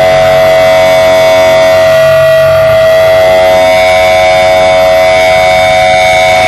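Loud sustained electric guitar amplifier feedback: several steady high tones held together without a beat or rhythm. A low hum underneath fades out about two and a half seconds in.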